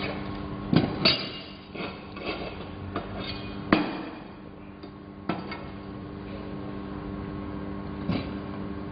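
Hammer striking steel: about seven irregular metal strikes with short ringing. The loudest come about a second in and nearly four seconds in, over a steady hum.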